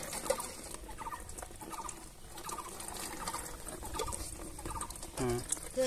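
A bird calling in short clusters of chirps that recur every half second to a second, over soft wet squelching and splashing of crushed watermelon pulp being squeezed by hand and scooped with a steel glass. A brief low hum-like sound comes near the end.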